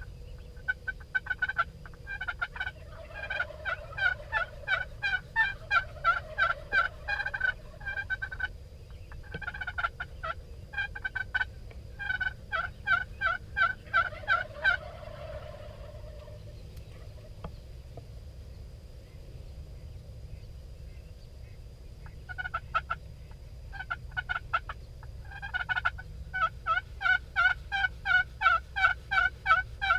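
Wild turkeys calling in long runs of quick, evenly spaced notes, with a pause in the middle and a low rumble of wind underneath.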